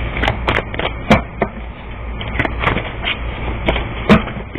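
A deck of reading cards being shuffled and handled: irregular sharp snaps and taps, a dozen or so, over a steady low hum.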